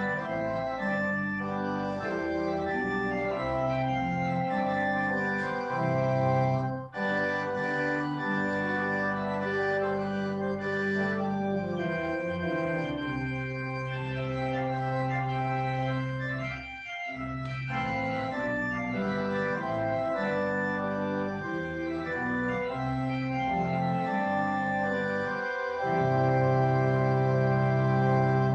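Church organ playing a postlude after the dismissal: sustained full chords with two brief breaks, ending on a long, loud held chord that cuts off.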